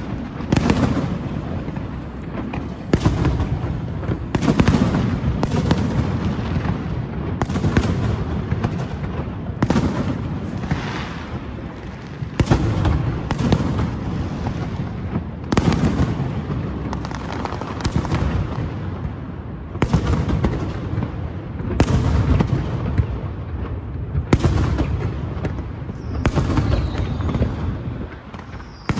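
Aerial fireworks bursting, a sharp bang every second or two over a rolling, rumbling wash of echo and crackle. A falling whistle comes in near the end.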